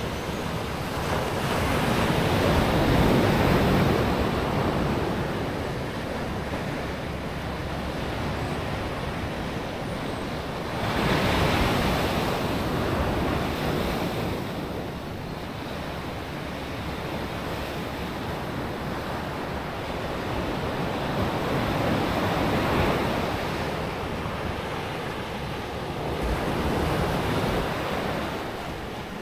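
Pacific Ocean surf breaking on the shore. It swells louder about four times as waves come in and falls back between them.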